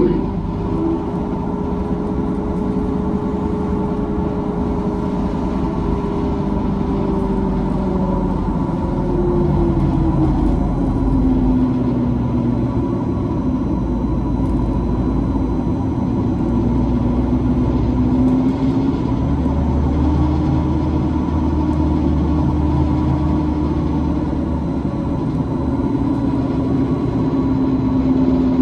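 A 2004 Neoplan electric trolleybus in motion, heard from inside: the whine of its electric drive over a steady road rumble. The whine drops in pitch about ten seconds in, then climbs again a little past halfway as the bus changes speed.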